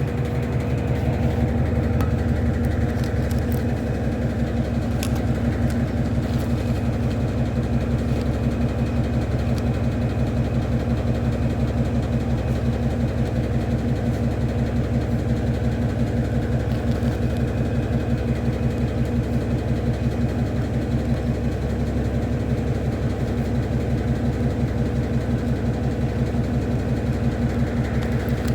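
Electrolux LAC09 washing machine spinning on its turbo drying function: a steady motor and drum hum with a rapid, even pulsing.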